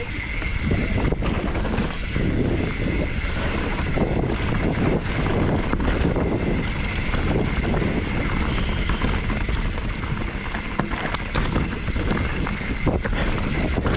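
YT Tues downhill mountain bike ridden fast down a dirt forest trail: steady wind noise on the microphone with the tyres on dirt and the bike rattling and knocking over bumps and roots.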